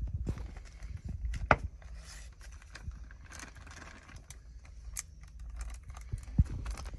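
Plastic zip-top bag of pink rust-remover being handled by rubber-gloved hands: the plastic crinkles and rustles, with scattered sharp clicks and light knocks, the loudest about a second and a half in, as the bag's zipper is worked shut.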